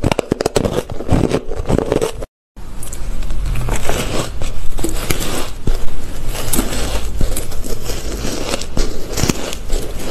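Crushed ice being bitten and chewed close to the microphone: dense, crisp crunching, a brief dropout about two seconds in, then steadier crunching over a low hum.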